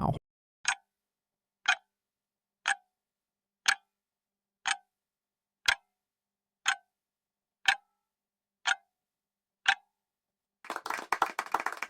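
Countdown timer sound effect ticking ten times, one tick a second, counting down the ten seconds for the answer. Near the end the ticking stops and a short burst of clapping begins, marking time up.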